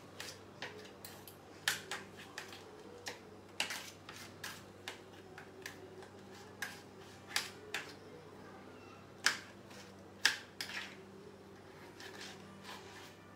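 Knife cutting a tomato on a plate: irregular sharp clicks and taps of the blade against the plate, a few of them louder strikes, over a faint steady low hum.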